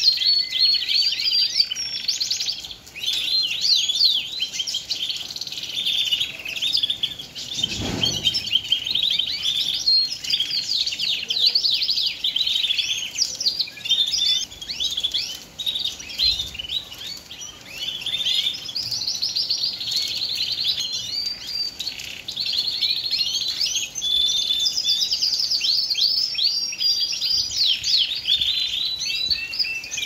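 Male Shirazi canary in full song: a continuous run of rapid high trills, chirps and warbles with hardly a break. A brief low thump about eight seconds in.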